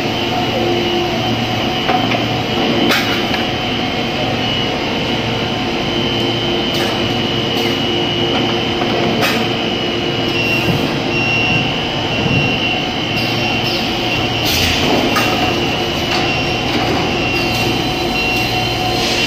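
Cast PE stretch film machine running: a steady industrial hum with a high whine, broken every few seconds by sharp clicks and knocks from its moving parts.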